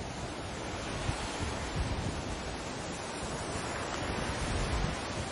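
Sea surf washing steadily, with an uneven low wind rumble on the microphone; the wash swells a little about four seconds in.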